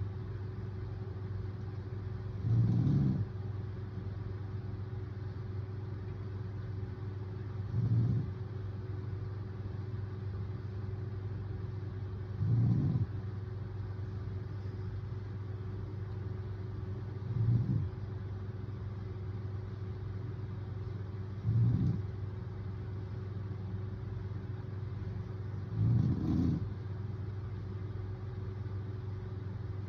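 A man snoring in his sleep: six short, low snores, one about every four to five seconds, over a steady low hum.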